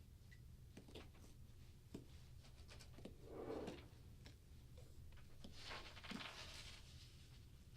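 Faint rustling and light clicks of pick-and-pluck foam blocks being worked loose and torn from a case insert, with two slightly louder rustles in the middle, over a low steady hum.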